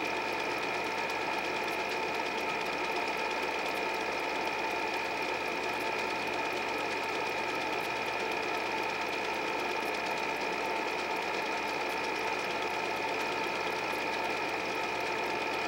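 8 mm film projector running steadily: an even mechanical whir from the motor and film drive, with a constant high whine over it.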